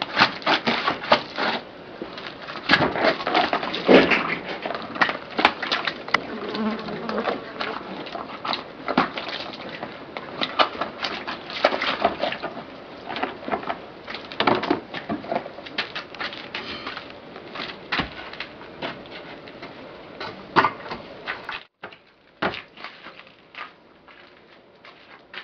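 Irregular splashing and wet rubbing as feet and hands are washed with water from a plastic basin, with a buzz that sounds like insects. The sound drops away abruptly near the end.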